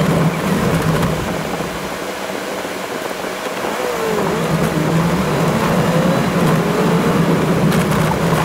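Toyota Land Cruiser driving on a rough gravel track: a steady engine drone with crunching tyre and gravel noise. The engine note drops away about two seconds in and comes back about four seconds in, with a faint whine sliding in pitch.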